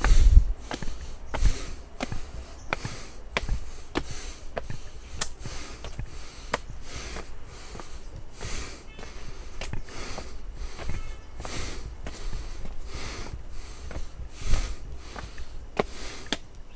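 A hiker breathing hard while climbing, about one breath a second, with light taps in between.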